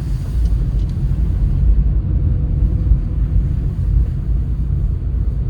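Steady low rumble of a car heard from inside the cabin, its engine running.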